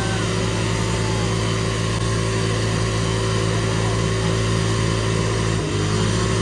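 Car engine running at steady, held revs, its pitch shifting about five and a half seconds in.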